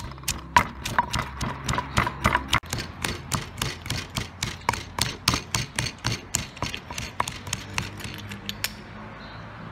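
Wooden pestle pounding garlic and chili in a stone mortar: steady rhythmic thuds, about four strokes a second, that stop shortly before the end.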